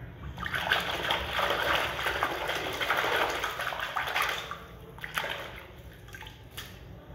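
Water sloshing and splashing in a plastic tub as a hand swishes a small plastic toy figure vigorously through it for about four seconds. After that it goes quieter, with water dribbling back into the tub and a few small splashes.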